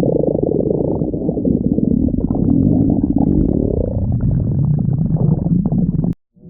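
Stomach growling and gurgling, heard close up: a continuous low rumble with bubbly crackles, and a growl that glides up in pitch about three seconds in. The sound cuts off abruptly near the end.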